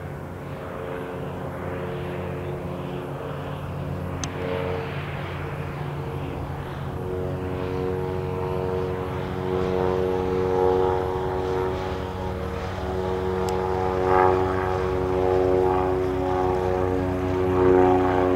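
Cessna 172 single-engine propeller airplane on landing approach: a steady engine-and-propeller drone that grows louder as it comes closer.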